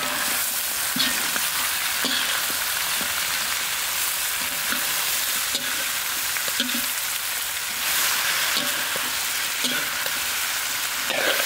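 Shredded cabbage, green pepper and pineapple sizzling steadily in a hot metal wok while a metal spatula stirs and turns them, scraping the pan every second or so.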